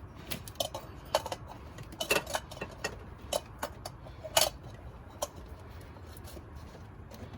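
Oil filter wrench clicking against a new oil filter as it is snugged down, about fifteen sharp, irregularly spaced metallic clicks over about five seconds, the loudest near the end of the run.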